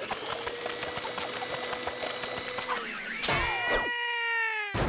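Cartoon electric stand mixer running flat out with a fast, dense rattle over a steady motor hum for about three seconds. It is followed by a whistle that slides slowly down in pitch and cuts off near the end, the cartoon sound of something falling.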